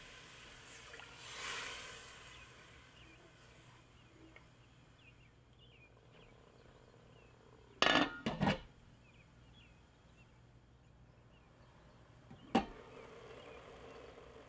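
Glass lid set down on a stainless steel pot, clinking a few times in quick succession about halfway through, then a single sharp clink of the lid near the end; a soft swish from the pot about a second in.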